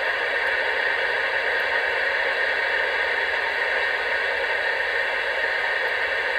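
Cobra 19 Ultra III CB radio's speaker giving a steady, even hiss of static on channel 19. Its busy light is lit: the squelch is open on an occupied channel, so the operator cannot transmit yet.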